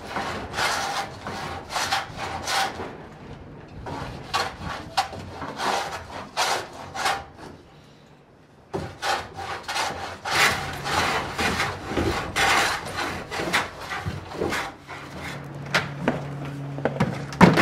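A hand tool rasping across wood in repeated back-and-forth strokes, about two a second, with a short pause about eight seconds in. A steady low hum joins the strokes in the second half.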